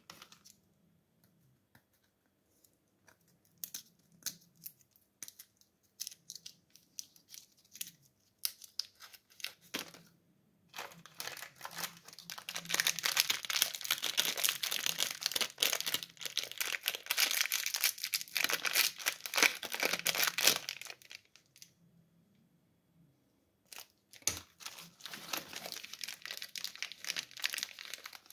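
Plastic sweet wrappers crinkling and tearing as they are handled and opened. The first ten seconds hold sparse rustles and clicks, then about ten seconds of dense crinkling and tearing follow, a short pause comes, and more crinkling starts near the end.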